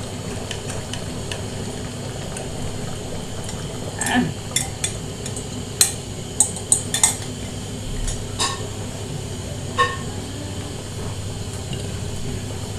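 Metal spoon stirring a thick stew in an aluminium cooking pot, scraping and clinking against the pot, with a run of sharp clinks from about four seconds in and a few more near ten seconds. A steady low hum runs underneath.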